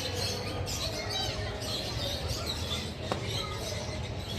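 Many birds chirping and twittering in short, high calls, with one sharp click about three seconds in.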